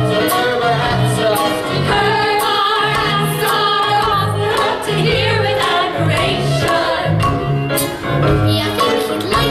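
Ensemble of voices singing a show tune with a live accompaniment of steady bass notes and percussion hits.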